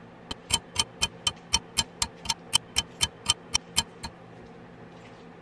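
A clock ticking evenly, about four ticks a second, about fifteen ticks in all, stopping a little under four seconds in.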